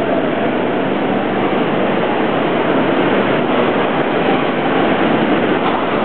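Train pulling into a station platform, a loud, steady rush of rolling noise with no distinct clanks.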